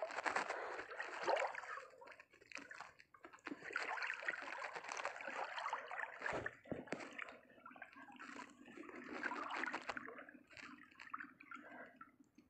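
Shallow sea water sloshing and lapping close by, in irregular small splashes.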